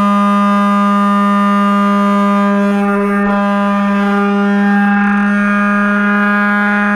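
Turnigy G10 brushless outrunner motor driving a 10x6 propeller at steady throttle, picked up by the camera on board the plane: a loud, steady hum with many overtones, held on one pitch.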